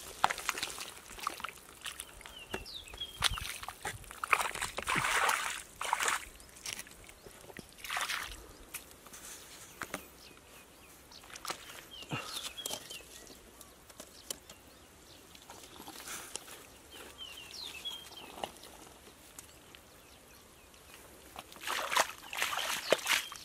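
Wet mud and shallow water sloshing and squelching in irregular bursts as a person works barefoot in a drained muddy field, with the loudest splashing near the end as he wades through the muddy water. A few faint, short high chirps come now and then.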